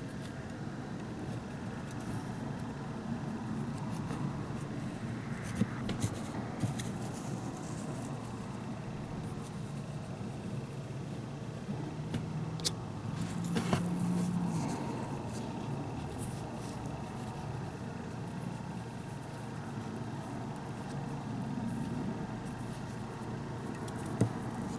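Steady low background rumble with a few light clicks and taps as plastic toy horse figures are handled and set down on a tabletop.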